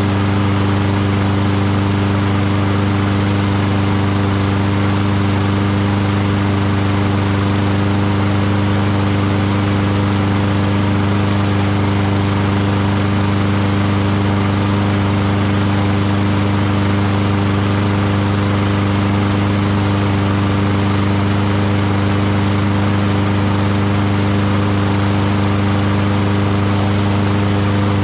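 Lawn-Boy self-propelled push mower's engine running at a steady, unchanging speed after its water-flooded carburetor was cleaned and its fuel bowl drained; it runs smoothly.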